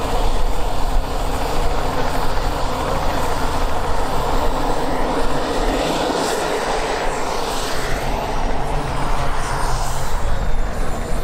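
Turbine engine of a large radio-controlled L-39 Albatros model jet running steadily as the model sits on the runway and begins to taxi, a loud rushing noise with a faint high whine that slowly shifts in pitch.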